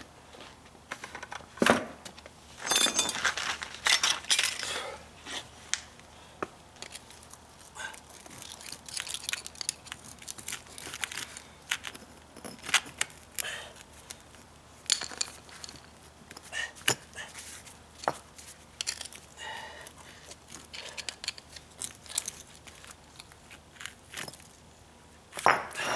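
Concrete pavers being pried loose and lifted out by hand: gritty scraping and clinking of paver on paver and on sand. A louder stretch of scraping comes a few seconds in, then scattered clicks and knocks.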